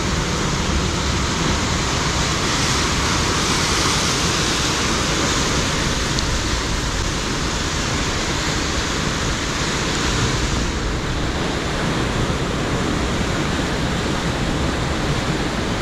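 Steady rush of sea surf breaking on rocks, mixed with wind.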